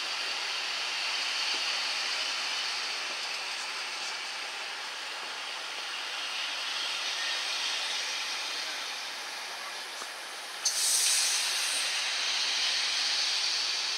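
Steady rolling noise and hiss of a charter train's coaches moving slowly past on the rails. About eleven seconds in there is a short, louder burst of hiss.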